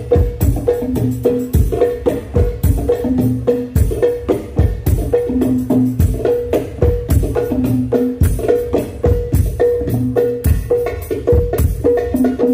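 Hadroh percussion ensemble playing a fast, steady rhythm: hand drums and frame drums struck in an interlocking pattern, with the jingles of a ring tambourine over the top.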